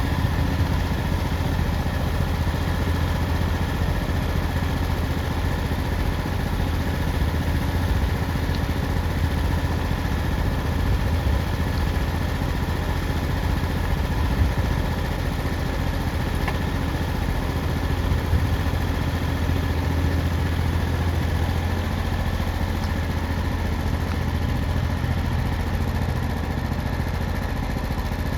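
Engine of a sawmill running steadily at a constant speed, with a strong low hum and no change in pitch.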